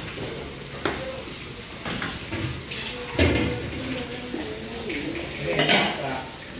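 Kitchen clatter: a few sharp knocks and clinks of utensils and metal pans on a steel counter, with voices talking in the background.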